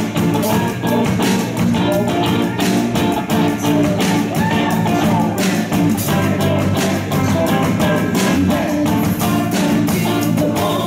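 Live rock band playing: electric guitars, bass guitar and drum kit, with singing over them.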